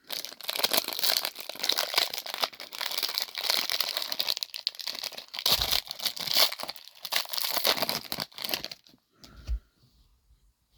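Plastic wrapping on a trading card box and packs being torn open and crinkled by hand for about nine seconds, followed by a short low thump near the end.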